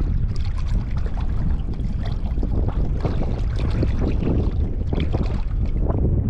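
Water splashing and sloshing in irregular bursts as a hooked bass thrashes at the side of the boat while it is grabbed by hand, over a steady low rumble.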